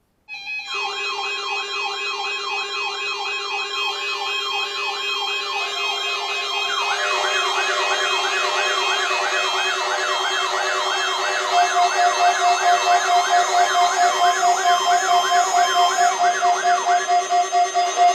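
Several weather radio receivers sounding their alert alarms at once: electronic siren wails repeat about two and a half times a second over steady tones. A second, overlapping siren joins about seven seconds in, and a loud pulsing beep alarm starts near two-thirds of the way through.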